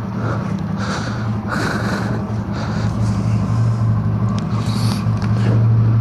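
Kick-start motorcycle engine idling steadily, a little louder near the end, with an odd noise from the bike that the rider can't account for.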